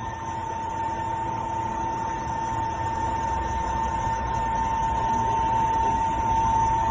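A CNC lathe cutting under flood coolant: a steady hiss of coolant spray and machine rumble, with one steady high whine over it, growing slightly louder.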